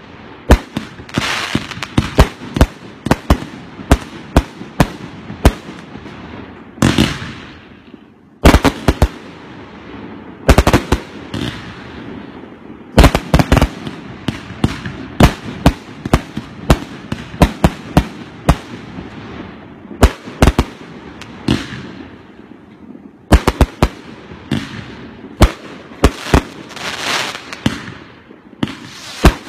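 A 138-shot firework cake with mixed 1.2-inch and 2-inch tubes firing continuously. It gives irregular sharp bangs of shells launching and bursting, often several a second, with some louder clusters.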